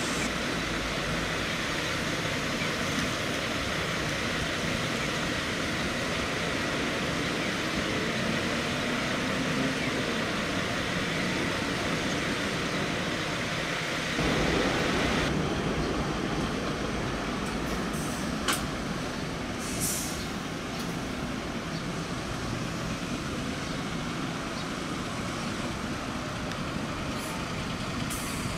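Large diesel coach engines running at a bus terminal, growing louder about halfway through as a coach moves off, with a couple of short sharp hisses or clicks a few seconds later.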